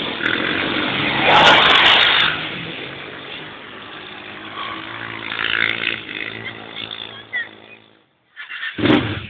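Quad bike engine running, loudest as it passes close about a second and a half in, then fading away. The engine sound cuts off shortly before the end, followed by a short loud burst of noise.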